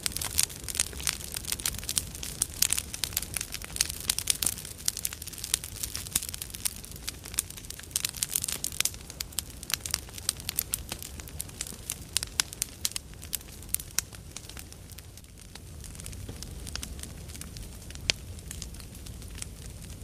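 Large campfire burning, with a low rumble under dense crackling and sharp pops from the burning wood. The crackles thin out after about two-thirds of the way through, leaving the rumble, with one sharp pop near the end.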